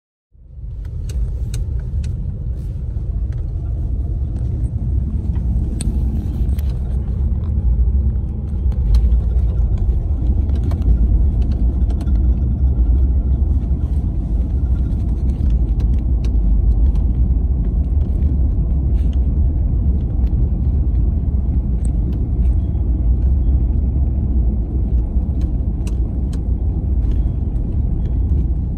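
Steady low rumble of engine and tyres heard inside the cab of a 2018 Chevrolet Silverado with its 6.2 L V8, driving along a snow-covered road, with scattered light clicks. It grows a little louder about eight seconds in.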